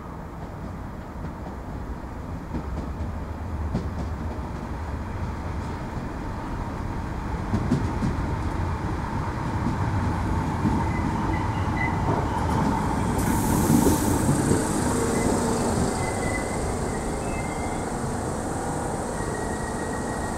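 8300-class DART electric multiple unit running into the platform and braking to a stop, its wheels on the rails growing louder as it nears. A high hiss starts suddenly about two-thirds of the way through and holds, with a few short squeals as it slows.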